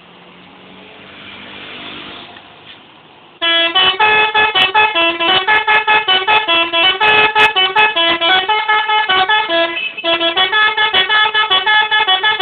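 Indonesian bus 'telolet' horn, a multi-tone musical horn, playing a fast tune of short notes that change pitch several times a second. It starts suddenly a little over three seconds in, stops for a moment around ten seconds, then plays on. Before it, only a quieter swell of traffic noise.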